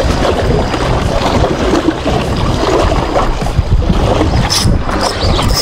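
Boat motor running steadily with a low hum, and wind buffeting the microphone.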